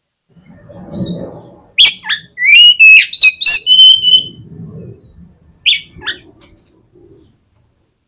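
Oriental magpie-robin (kacer) singing an excited lure song: a loud run of sharp whistles and rising and falling notes starting about two seconds in, then a shorter, two-note phrase near the end.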